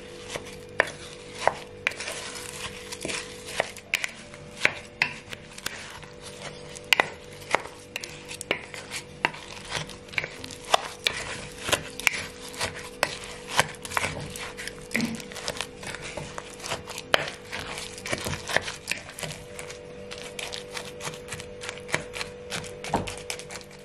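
Kitchen knife chopping food on a cutting board: a long run of sharp, irregular strokes, about two or three a second.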